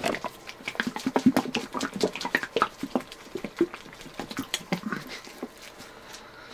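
Plastic bottle of Citristrip paint stripper being shaken hard by a gloved hand: a rapid, irregular run of sloshing and knocking that dies away about five seconds in.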